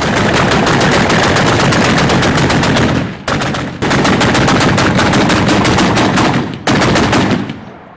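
Loud automatic machine-gun fire in long rapid bursts: one of about three seconds, a brief pause, another of about three seconds, then a short final burst that trails off near the end.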